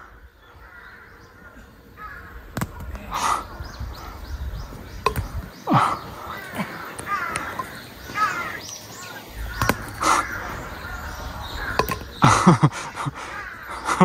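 Crows cawing, harsh calls every few seconds, with several calls close together near the end.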